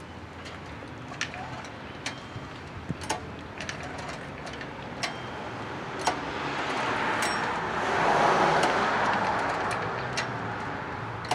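A passing car swells up and fades away over a few seconds, about seven to ten seconds in. Scattered light clicks and knocks of the portable generator's switch, fuel valve and choke being handled.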